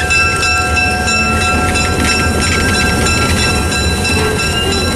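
EMD E8A diesel locomotive running close by as it rolls slowly past: its twin two-stroke diesel engines give a steady low rumble, with steady high-pitched tones over it.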